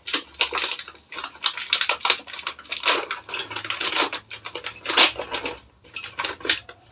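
Hands unwrapping plastic accessory packaging: dense crinkling and clicking with small parts clattering, loudest about five seconds in.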